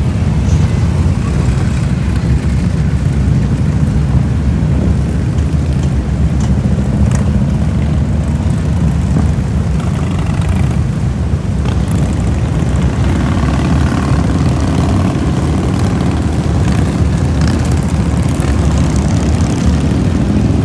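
A procession of Harley-Davidson motorcycles riding past, their V-twin engines running together in a loud, continuous low drone that holds steady with no breaks.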